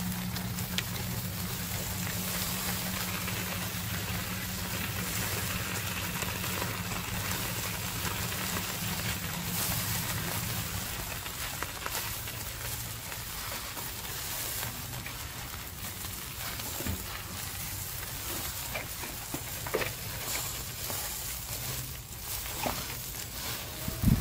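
Marinated fish pieces sizzling and crackling in a wire grill basket over hot charcoal, a steady hiss with scattered pops. A low steady hum runs underneath for about the first half, and a few sharper clicks come near the end.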